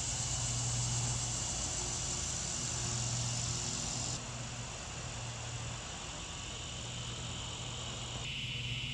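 Steady high-pitched insect chorus over a low steady hum. It changes abruptly about four seconds in and again near the end, where the chorus drops to a lower pitch.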